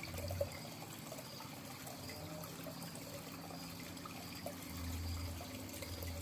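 Steady trickle and pour of water running into a garden pond, with a low rumble briefly near the start and again for the last second or so.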